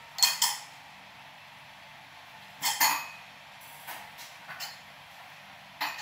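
Eating utensils clinking and tapping against a ceramic rice bowl in short clusters: a couple of sharp clinks at the start, a louder pair about two and a half seconds in, then a few lighter taps.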